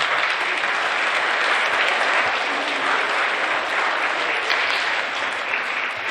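Audience of schoolchildren applauding steadily.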